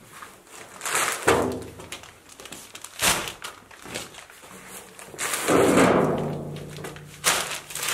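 Paper sacks of cement being heaved into a wheelbarrow: a few heavy thuds as the sacks land, with the rustle and scrape of the paper bags being handled.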